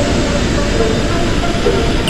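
Motorcycle at road speed: steady rush of wind and engine noise, with background music notes coming back in near the end.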